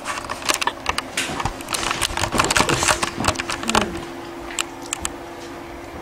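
Close handling noise of a handheld device being passed between hands: a rapid run of clicks, taps and rustles for about four seconds, then a few sparse clicks, over a faint steady hum.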